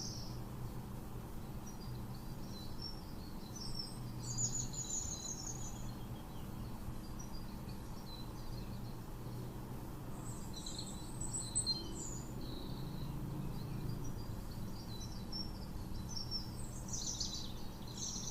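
Birds chirping in short twittering spells, three times, over a steady low background hum.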